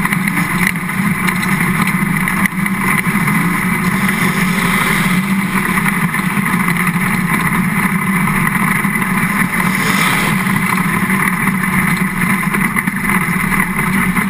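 Dirt-track race car engine running steadily at speed, heard loud from on board the car.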